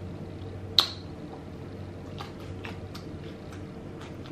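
Mouth sounds of eating sauce-covered seafood: a sharp wet smack about a second in, then soft scattered clicks of chewing.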